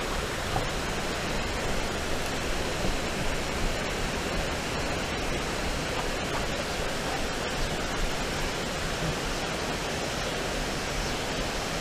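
Creek water running steadily over a low concrete weir and through rocky riffles, an even rushing sound.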